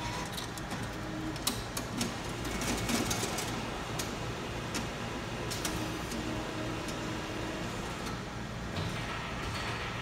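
TD ATM's envelope-free cash deposit mechanism drawing in and counting banknotes: mechanical whirring with many quick clicks, busiest in the first half.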